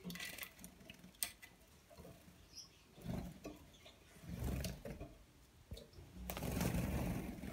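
Gouldian finches bathing in a shallow plastic water bowl: short flurries of splashing and rapid wing-fluttering, with small taps and clicks of feet and beaks on the plastic rim. The longest and loudest flurry starts about six seconds in.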